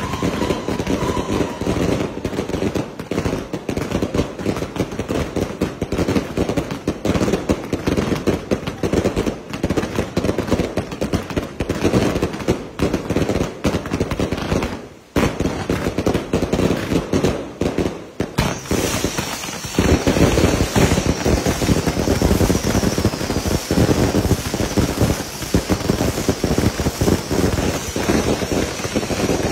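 Fireworks going off close by: a rapid, unbroken run of firecracker cracks and pops, with a steady high hiss of spark fountains joining about two-thirds of the way in.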